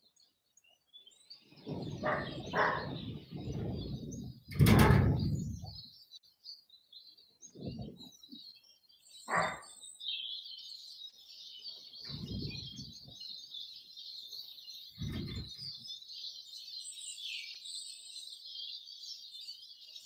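Small garden birds chirping, breaking into continuous high twittering from about halfway through. Several low, muffled thuds or rumbles come and go, the loudest just under five seconds in.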